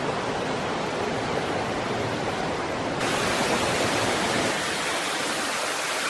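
Steady rushing hiss of water from a rocky stream and cascade, turning abruptly brighter about halfway through.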